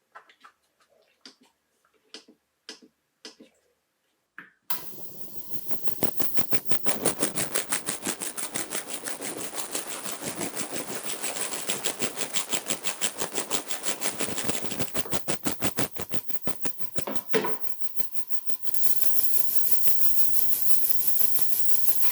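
Stainless steel watch parts being polished: a few light clicks, then a loud, rapid, rhythmic rubbing at about six strokes a second, which turns steadier and brighter near the end.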